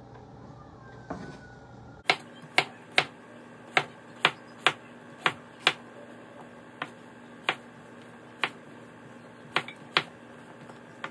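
Kitchen knife chopping green papaya on a wooden cutting board: a dozen or so sharp knocks of the blade striking the board, irregular at about one to two a second, starting about two seconds in.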